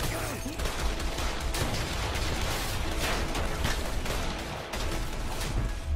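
A heavy exchange of gunfire: many rapid, overlapping shots from several guns, a handgun among them, with no break.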